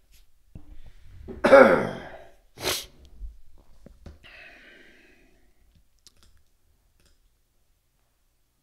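A man coughing: a loud cough about a second and a half in, then a shorter one about a second later.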